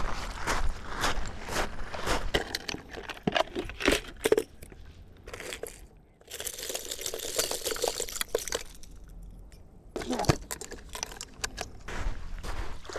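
Footsteps crunching on a gravelly lakeshore beach, a quick run of steps that pauses partway through, with a hissing wash in the pause and a few more crunches near the end.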